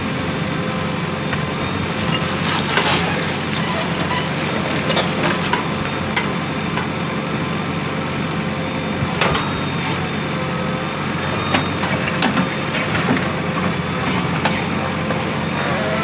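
JCB 3DX Plus backhoe loader's diesel engine running steadily, with scattered sharp clicks and knocks over it.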